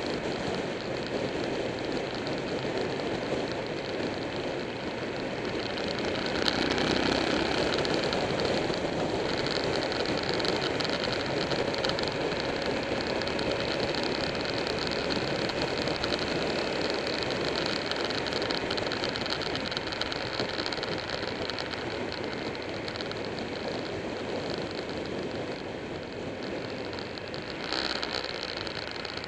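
Wind rushing over a motorcycle-mounted camera at road speed, with the Buell 1125R's V-twin engine running underneath. The rush grows louder about six seconds in.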